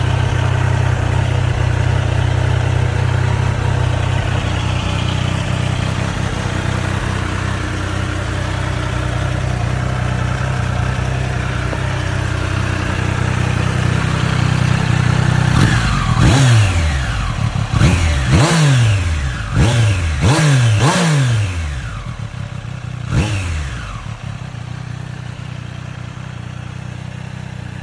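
Triumph Street Triple 765 RS's inline three-cylinder engine running steadily, then blipped hard about six times in quick succession from about halfway through, each rev falling quickly back, before settling to a quieter idle.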